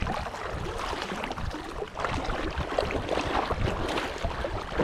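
Shallow water splashing and sloshing close by, in irregular small bursts, over a low rumble of wind on the microphone.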